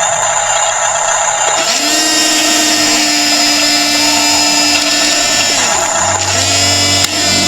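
Small electric drive motors and gearboxes of an RC bulldozer whining. The whine rises in pitch just under two seconds in, holds, drops near the six-second mark, then rises again as the motors speed up and slow.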